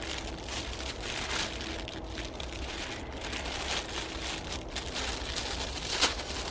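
Parcel packaging crinkling and rustling as a mailed parcel is opened by hand. There is a sharp snap about six seconds in.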